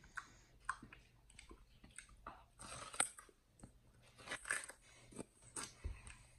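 A chimpanzee biting into a mini watermelon and chewing it, in irregular crunches with the sharpest about three seconds in.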